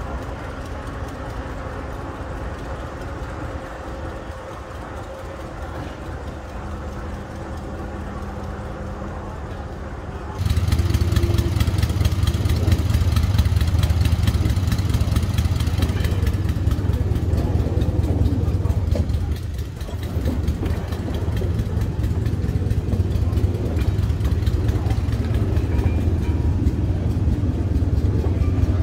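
Ruston diesel shunting locomotive at work on a freight train: a moderate engine hum at first, then about ten seconds in a sudden jump to a loud, steady low engine rumble with rail noise as the wagons move.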